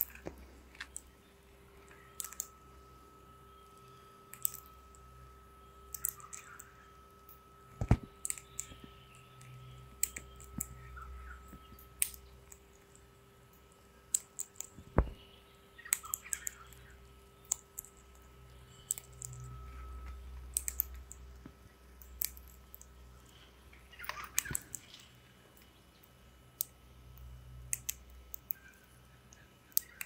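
Male Australian king parrot cracking sunflower seeds in its beak: irregular clusters of sharp clicks and crunches as the husks split.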